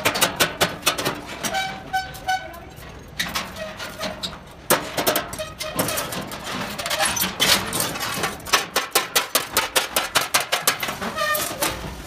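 Rapid series of sharp metal-on-metal strikes on the steel frame of a thresher concave screen, some with a short ringing tone. The strikes come in quick runs near the start and again later on.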